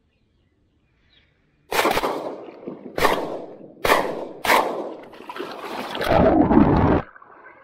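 Four shotgun shots in about three seconds, from a shotgun firing 3.5-inch magnum shells. About a second later comes a loud splash and muffled water rushing as the shooter is knocked into the marsh and the chest camera goes underwater. The noise cuts off suddenly.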